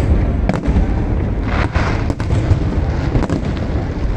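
Aerial fireworks bursting overhead: a continuous low rumble of shell explosions with several sharp bangs, and a hissing swell about a second and a half in.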